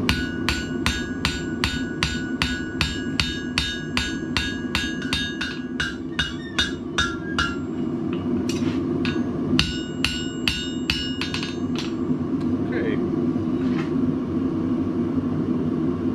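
Blacksmith's hammer striking hot steel on an anvil, about three blows a second, each leaving a bright ringing note. The blows pause briefly about halfway through, resume for a few seconds, then stop, leaving a steady low hum underneath.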